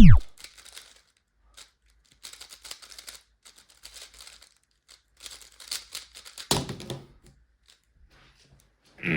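3x3 speedcube being turned quickly: irregular runs of light plastic clicking and clattering, with a louder clack near the end.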